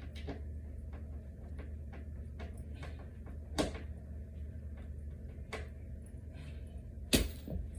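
Scattered clicks and knocks of flat-pack dresser parts being handled during assembly, with a sharp knock about three and a half seconds in and a louder one near the end, over a steady low hum.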